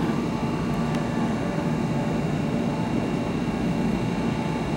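Steady machinery drone with a few constant humming tones, unchanging throughout.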